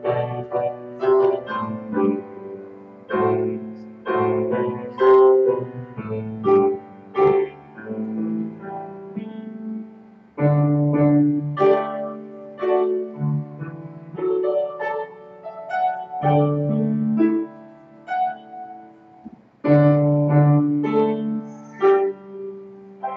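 Solo piano playing a slow piece in single notes and chords, each note struck and left to ring.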